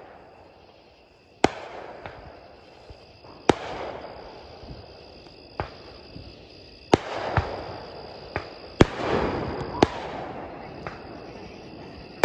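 Aerial fireworks bursting at a distance: a string of sharp, irregularly spaced bangs, about eight, the loudest around two-thirds of the way through.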